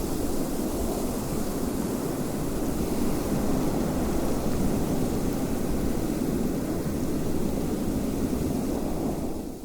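Steady wind blowing, a low rushing noise that begins to fade out right at the end.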